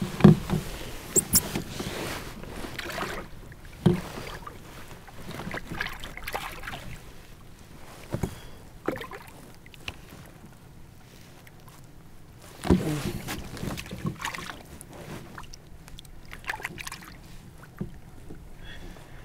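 Handling noises in a fishing kayak: irregular knocks and thumps against the hull and gear, with a few sharp clicks, as a walleye is worked free of a landing net. The loudest thumps come right at the start and again about two-thirds of the way through.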